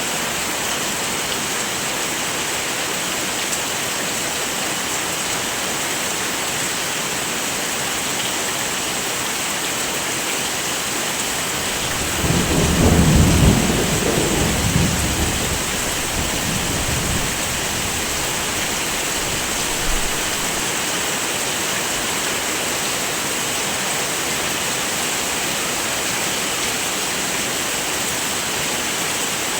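Steady heavy rain hissing, with a low rumble of thunder swelling about twelve seconds in and fading away over a few seconds.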